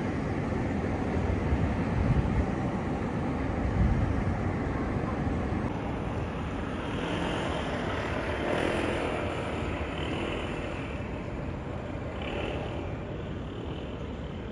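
Road traffic: cars passing on a city road, with a motor scooter passing about eight seconds in.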